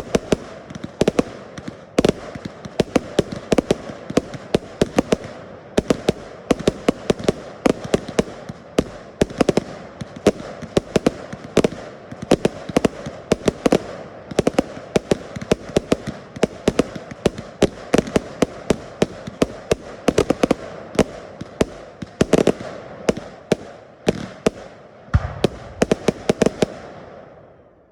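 A fireworks display firing a dense, continuous barrage of sharp bangs, several a second, over a steady background noise. The bangs thin out and the noise fades near the end.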